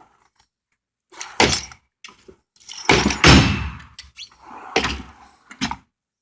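Steel drawers of a Snap-on roll-cab toolbox being shut and pulled open, a few separate thuds with tools rattling inside. The loudest and longest is about three seconds in.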